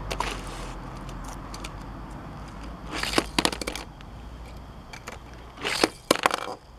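Hot Wheels die-cast toy car clicking and clattering against an orange plastic track as it is set down and rolled. There are three clusters of sharp clicks: near the start, about three seconds in, and about six seconds in.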